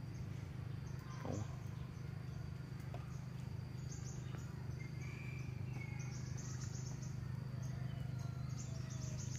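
Crickets and other insects trilling, a steady high tone with pulsing chirps on top that grow stronger in the second half, over a steady low rumble. A few faint bird chirps come midway.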